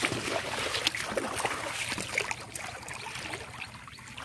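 Shallow water sloshing and splashing around a wading man's legs and a bamboo polo fish trap as he presses the trap down into it. Many small splashes, busier at first and thinning out toward the end.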